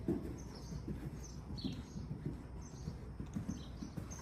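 Hoofbeats of a horse cantering on soft sand arena footing: low, soft thuds in a steady gait rhythm. Birds chirp now and then in the background.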